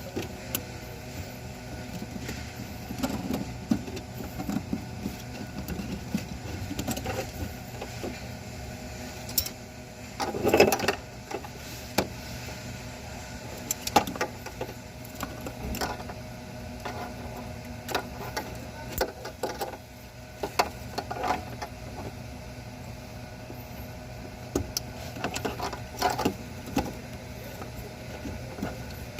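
Ford Taurus engine running at a steady idle, with scattered clicks and knocks and a louder clatter about ten seconds in.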